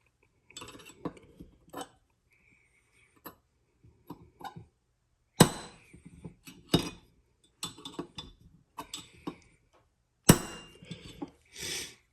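Metal taps and clinks of a hammer on a pin punch, driving a roll pin into an AR-15 lower receiver. Two hard strikes, about five seconds apart, stand out among lighter clicks of tools and parts being handled.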